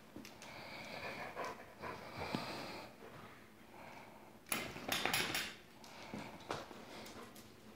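Dog moving about on a hardwood floor: claws clicking and scrabbling, and collar tags jingling, with a louder flurry of clicks about halfway through.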